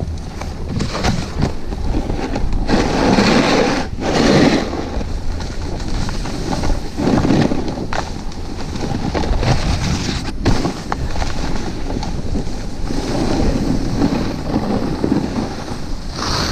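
Snowboard sliding and carving down a snowy slope, the rush of the base and edges on the snow swelling with each turn, with wind rushing over the camera microphone.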